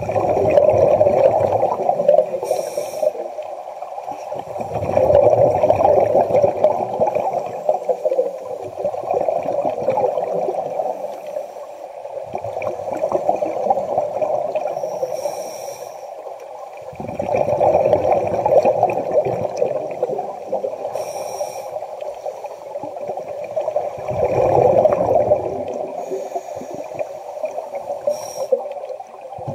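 Scuba regulator breathing underwater: exhaled bubbles gurgle and rumble out in slow cycles, one every four to five seconds, with brief hissing inhalations between them.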